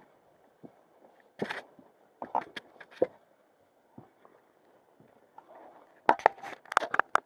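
Scattered knocks and sharp clicks, with a quick run of bright clicks about six seconds in.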